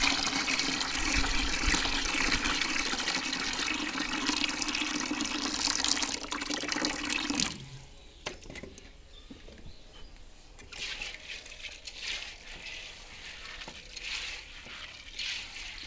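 Water poured from a bowl of soaked, split black gram into a plastic tub, a steady gush that cuts off suddenly about seven and a half seconds in; this is the wash water carrying off the loosened black husks. After that come softer wet rubbing and scraping sounds as a hand works the soaked dal in the bowl.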